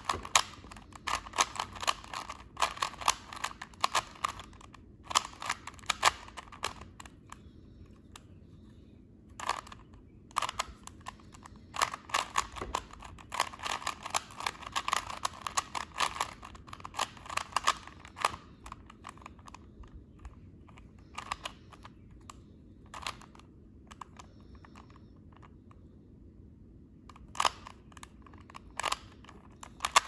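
Plastic Rubik's Cube being turned by hand, its layers clicking and clacking in runs of quick turns. The runs are broken by pauses, with only occasional single clicks for several seconds after the middle.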